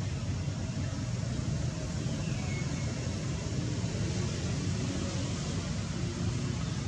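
Steady low rumble with an even hiss of outdoor background noise, without clear animal calls or sudden knocks.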